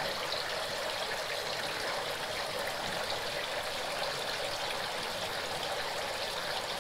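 Steady trickle and splash of running water in a circular trout-rearing tank, even and unbroken.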